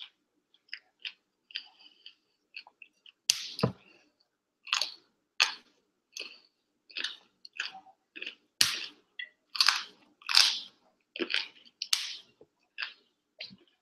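A person chewing mouthfuls of raw broccoli: faint clicks at first, then from about three seconds in a steady run of loud crunches, about three every two seconds.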